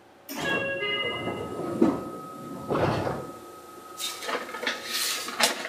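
Seibu 2000 series train's sliding passenger doors opening at a stop, just after the 'doors opening' announcement: a sudden rush of sound a moment in, then a few knocks and short bursts of hiss near the end.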